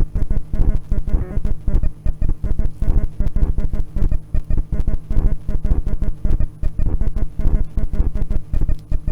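Background music with a steady beat, led by plucked guitar and bass.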